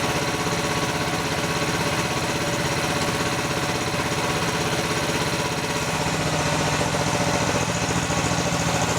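Mini excavator engine running steadily at an idle-like speed, its low note picking up a little about six seconds in.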